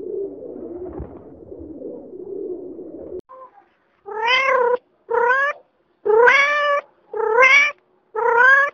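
A low, rough continuous sound for about three seconds, then a cat meowing five times, about a second apart, each meow rising and then falling in pitch.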